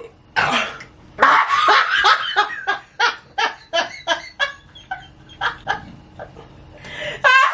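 Hearty laughter in rapid, repeated bursts that slowly fade, then pick up again near the end.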